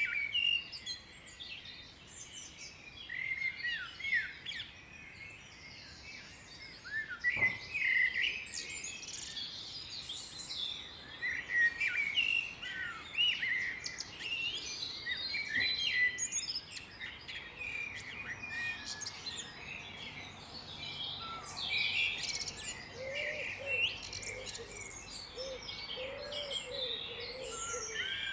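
Several songbirds singing together in a dense chorus of short, high chirps and trills. Near the end, a lower call joins in, repeated several times.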